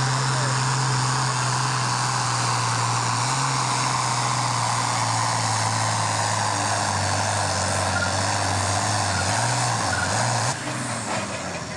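Turbocharged International Harvester diesel tractor running flat out under load as it pulls the sled, a steady heavy engine note that sags slightly and wavers as the load builds. About ten and a half seconds in, the engine is suddenly throttled back.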